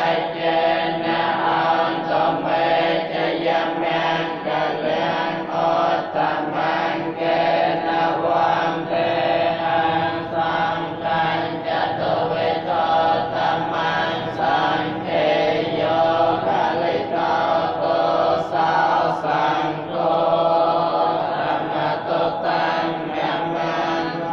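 Theravada Buddhist monks chanting together in many voices, a steady rhythmic recitation in continuous phrases.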